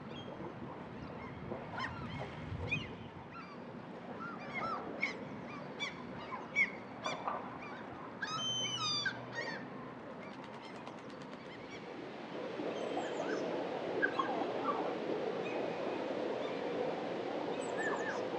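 Gulls calling: a series of short, rising and falling cries, with one louder, fuller call about halfway through. About two-thirds of the way in, a steady rushing noise builds underneath.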